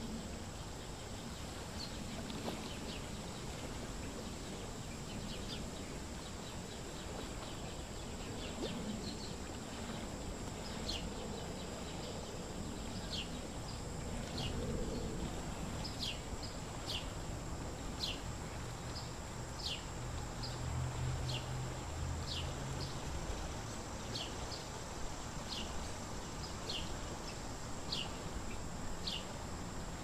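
Birds chirping: a series of short, high, downward-sliding chirps, faint at first and clearer from about a third of the way in, about one a second, over a thin steady high-pitched tone. A low rumble comes in briefly about two-thirds of the way through.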